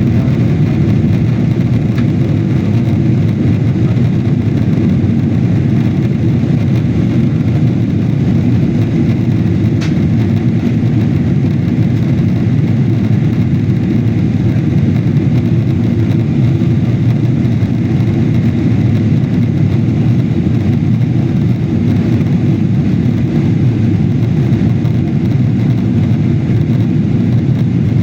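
Airliner engines and airflow as heard inside the passenger cabin on the landing approach: a loud, steady low rumble that holds at an even level throughout.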